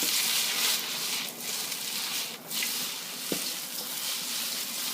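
Food sizzling in hot oil in a wok over a propane burner, a steady hiss that dips briefly twice, with one short knock about three seconds in.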